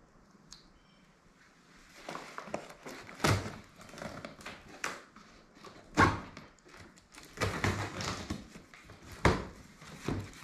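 Large cardboard shipping box being opened by hand, starting about two seconds in: crackling and tearing of cardboard and tape as the flaps are pulled up and bent back, with sharp knocks and thumps against the box, the loudest about three, six and nine seconds in.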